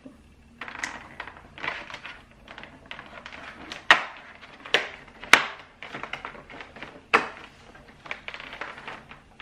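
Cardboard door of a Milka chocolate advent calendar being picked and torn open with fingernails: a run of scratching and crinkling, with four sharp clicks from about four seconds in.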